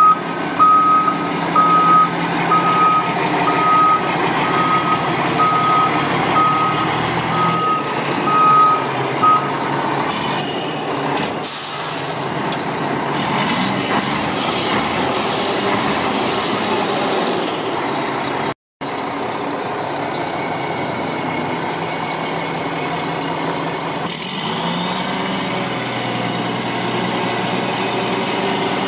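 Diesel engine of a 2003 Mack RD688S tandem-axle dump truck running steadily, with a backup alarm beeping at an even pace for about the first nine seconds. Around ten to thirteen seconds in come several loud hisses of air, followed by a falling whine.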